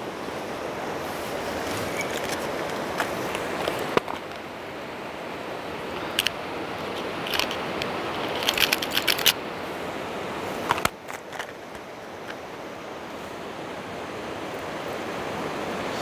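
Steady rush of a river flowing over rapids. About halfway through comes a cluster of small clicks and rattles as a spinner lure is clipped onto the line.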